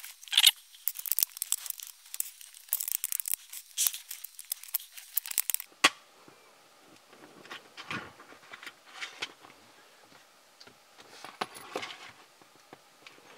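Small plastic clicks and scraping as the shell of a cassette tape adapter is worked apart by hand. The clicks are dense for about the first six seconds, then become sparser and fainter.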